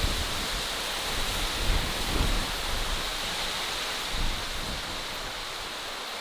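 Outdoor wilderness ambience: a steady rushing hiss, with irregular low gusts of wind buffeting the microphone, strongest in the first half.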